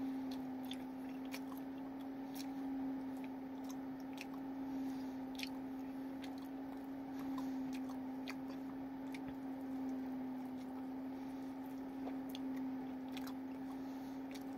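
A person biting and chewing sauced chicken wings close to the microphone, with irregular small clicks and smacks from mouth and fingers. A steady low hum runs underneath.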